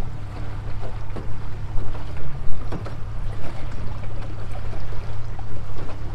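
Small aluminium skiff running under motor, a steady low drone, with the hull knocking and splashing on the chop.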